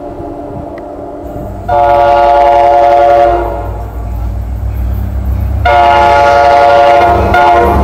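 Commuter train's air horn sounding two long blasts and then the start of a short one, a chord of several steady tones, over the low rumble of the approaching train.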